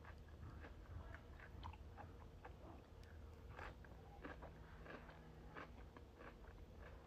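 A person chewing crisp cucumber salad close to the microphone: quiet, irregular wet crunches and mouth clicks.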